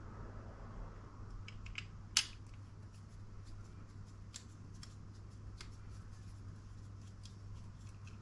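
Screwdriver turning a small screw into a plastic model dashboard part, with scattered faint clicks and ticks of metal on plastic and one sharper click about two seconds in, over a low steady hum.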